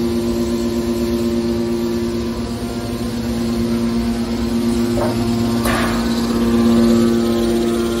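Hydraulic power unit of a scrap metal baler (electric motor driving a hydraulic pump) running with a steady, even hum. Two brief sharp noises cut in about five and six seconds in.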